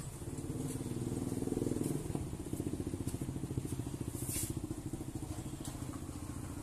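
Motorcycle engine running close by with a fast, even pulse, getting louder about a second in and then easing off as it moves away. A short hiss about four seconds in.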